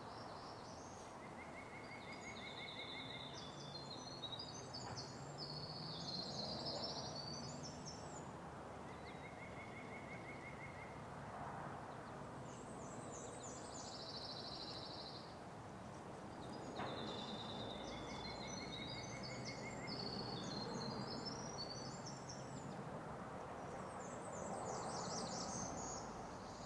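Songbirds singing in woodland: several high, varied song phrases, and a short even trill that repeats about every seven or eight seconds. Wind rustles through the trees underneath, swelling and easing.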